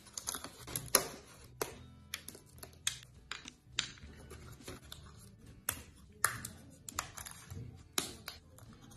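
Thin laser-cut plywood parts clicking and clattering as they are handled and set down on a cutting mat: a dozen or so irregular sharp taps, the loudest about a second in.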